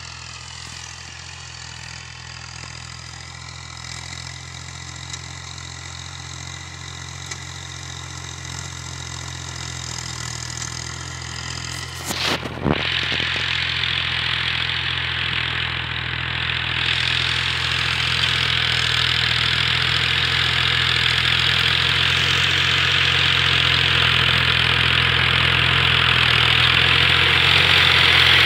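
Al-Ghazi Fiat 480 tractor's three-cylinder diesel engine running steadily under load while pulling a plough through the soil. It grows steadily louder as the tractor approaches. A few sharp knocks come about twelve seconds in, and after them a rushing hiss rises alongside the engine.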